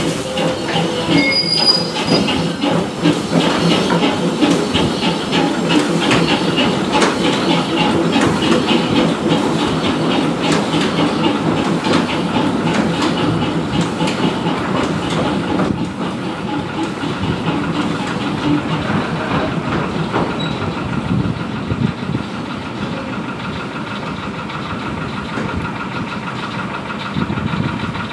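Small narrow-gauge steam locomotive moving slowly, with steam hissing and a fast rhythmic clicking and clanking. It grows quieter after about 16 seconds as it draws away.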